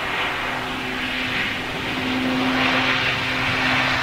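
Bombardier Dash 8 Q400 turboprop at takeoff power, its six-bladed propellers giving a steady hum over engine noise, growing louder as the aircraft rotates and lifts off.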